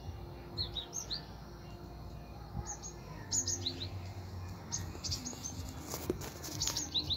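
Short, high-pitched chirps from a small animal, each a quick downward slide, coming in little groups of two to four throughout. A few sharp clicks sound near the end.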